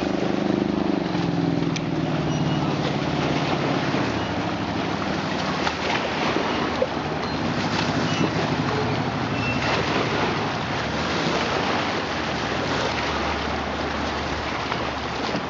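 Engine of a wooden speedboat running hard as it passes and moves off, its note sliding lower over the first few seconds, then a fainter engine drone over a steady rushing noise.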